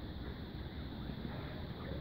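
Steady low rumble of wind on a phone microphone.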